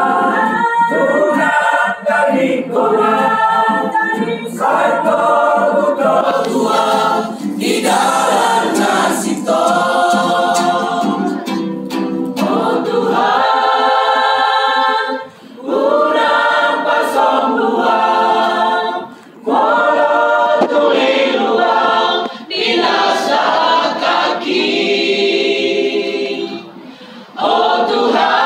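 Mixed church choir of men and women singing a worship song, in long phrases broken by short pauses.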